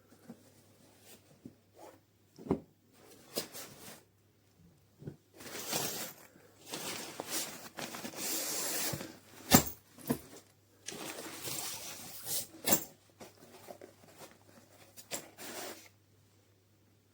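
A fabric travel backpack being handled: irregular rustling of the cloth, heaviest in the middle, with scattered sharp clicks and knocks.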